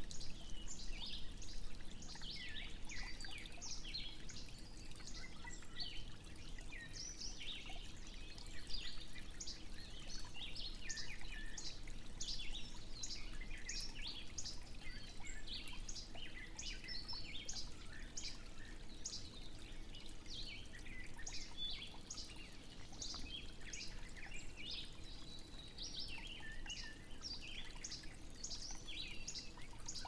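Several wild birds singing, a dense run of short high chirps and trills overlapping one another, over a faint steady low background rush.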